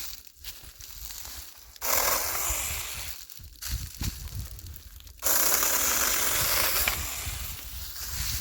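Saker battery-powered mini chainsaw running in two bursts, a short one about two seconds in and a longer one of about three seconds starting near the middle, its chain cutting through tree limbs.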